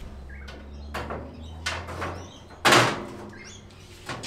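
Clunks and knocks from a pellet smoker's open lid and steel parts being handled, the loudest a heavy thump nearly three seconds in. A low hum runs underneath and stops about two seconds in.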